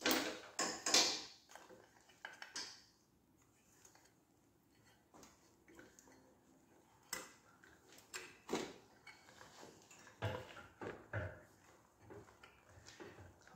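Scattered clicks, knocks and scrapes of parts being handled as a stiff rubber intake boot is worked into place on a motorcycle's airbox, in bunches with short quiet gaps between them.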